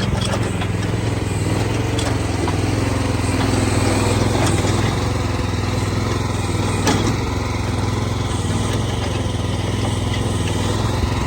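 AGT QH12 mini excavator's small engine running steadily under digging load, with a couple of brief knocks partway through.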